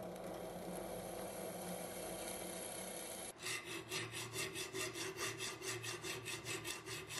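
A drill running steadily as it bores through a steel saw blade, cut off suddenly after about three seconds by a hand file rasping back and forth across the steel blade in quick, even strokes, several a second.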